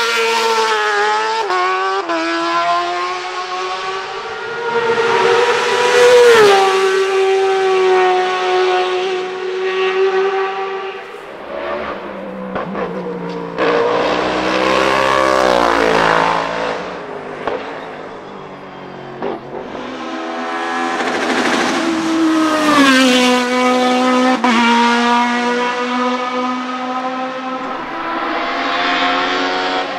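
Hillclimb prototype race cars passing one after another at full throttle. Their engines rev high, then drop in pitch at each upshift and as each car goes by. The loudest passes come about six, fifteen and twenty-three seconds in.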